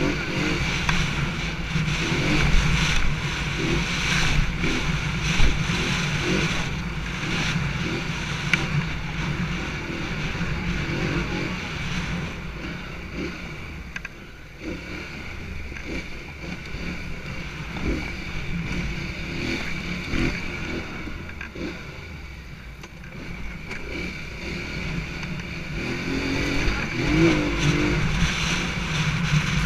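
ATV engine running with the throttle rising and falling. It eases off around the middle and grows louder again near the end.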